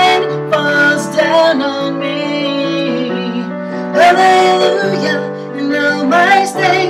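A woman singing a slow worship song over piano accompaniment, holding long notes between sustained piano chords.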